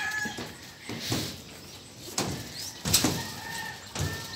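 Footsteps thumping on the deck of a hanging footbridge, a few irregular knocks about a second apart.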